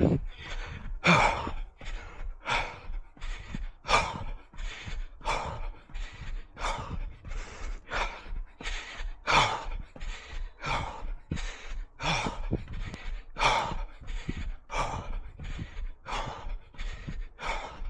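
A runner breathing hard in a steady rhythm, about three breaths every two seconds, close to the microphone.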